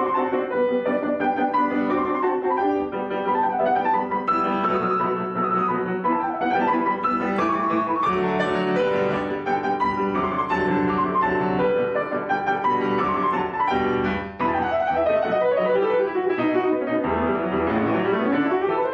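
Piano-led instrumental background music with quick rising and falling runs, ending in a rising flourish near the end.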